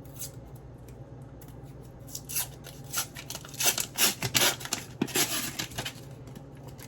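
Packaging being handled: a quick run of short scratchy rustles and crinkles through the middle few seconds.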